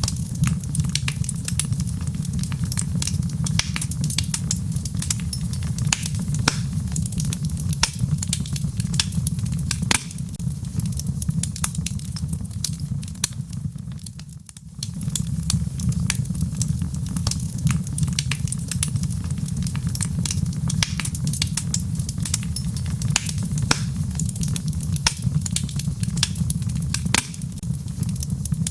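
Wood fire burning in a fireplace: a steady low rumble of flames with frequent sharp crackles and pops from the burning logs. The rumble dips briefly about halfway through, then carries on.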